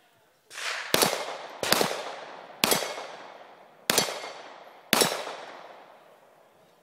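Five handgun shots fired at steel plate targets in an uneven string over about four seconds, each followed by a long fading echo off the surroundings.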